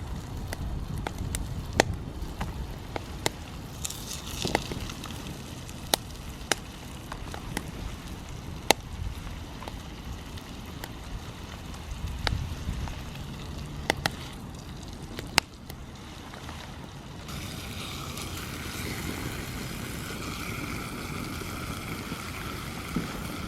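Seasoned wood burning in a Hobo Stove on a Ghillie Kettle base, crackling with scattered sharp pops, over a low wind rumble. In the last third the pops give way to a steadier hiss.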